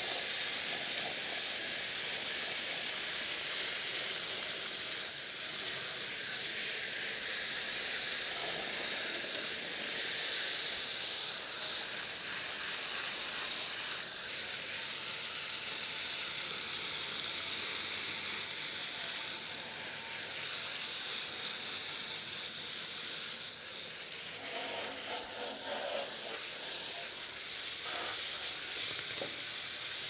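Garden hose spraying water into and through the coil fins of a central air conditioner's outdoor condenser unit, with a thumb pressed over the open hose end instead of a nozzle: a steady hiss of spray as the coil is washed clean.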